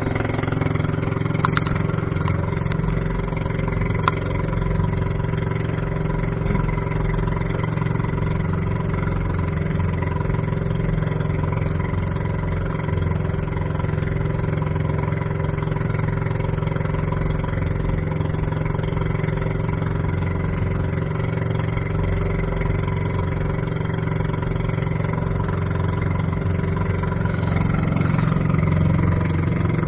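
Small boat's engine running steadily at an even speed, with a slight swell in loudness near the end.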